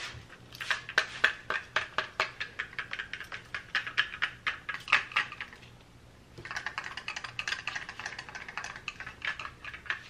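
Loose small hard bits rattling inside a DJI Mavic Pro drone's shell as it is tilted and shaken, taken by the owner for rice grains left inside after drying it in rice, though he also wonders whether something broke in the crash. Quick dry ticks in two bouts, with a short pause a little past halfway.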